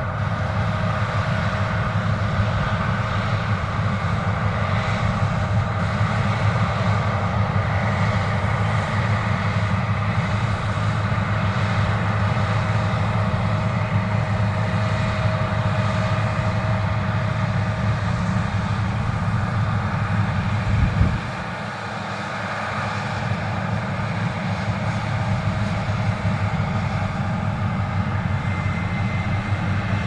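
John Deere X9 1100 combine harvesting with its HD40X draper header: the steady low drone of its diesel engine and threshing machinery, with a faint steady whine over it. About two-thirds of the way through comes a short low thump, after which the drone is briefly quieter before it builds again.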